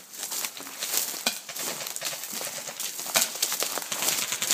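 Hurried footsteps crunching through dry weeds and snow, with stiff stalks crackling and brushing past in a dense run of small clicks, and one sharper knock about a second in.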